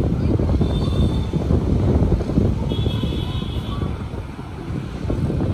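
Wind buffeting the microphone over the low, steady rumble of a distant Boeing 787-9's jet engines on final approach, with two faint brief high tones about one and three seconds in.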